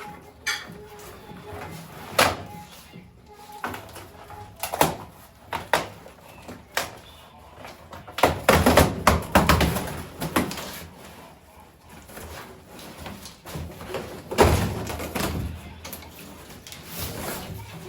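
Irregular knocks, thuds and bumps of things being handled, with a dense run of them about eight to ten seconds in and a single loud thud about fourteen and a half seconds in.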